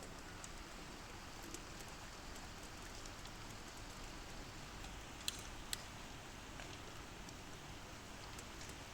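Steady rain falling, with scattered individual drops tapping close by and two louder drips a little past halfway.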